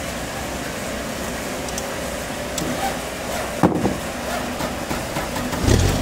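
An engine idling steadily, with a sharp knock a little past halfway and a louder low rumble starting near the end.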